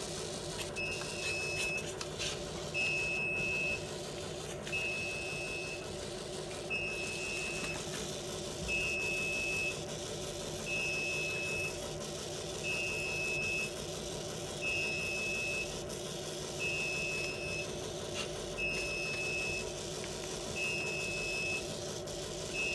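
Short electronic beeps repeating evenly, about one every two seconds, over a steady machine hum from an industrial coding printer setup.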